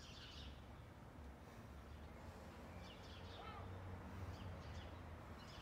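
Quiet outdoor ambience: a faint, steady low rumble with a few small bird chirps, mostly around three seconds in and again near the end.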